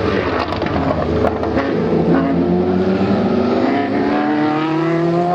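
Porsche 962 Group C race car's twin-turbo flat-six engine accelerating, its note climbing, dropping back about halfway through and climbing again, with a few sharp pops in the first second or so.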